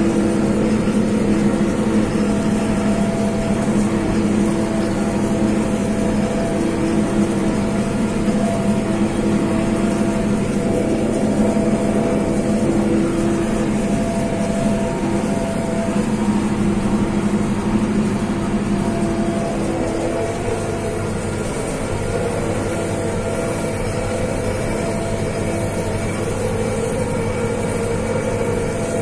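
Farm tractor's engine running steadily under load while it pulls a small square baler through the straw, heard from inside the cab. The engine note shifts slightly about twenty seconds in.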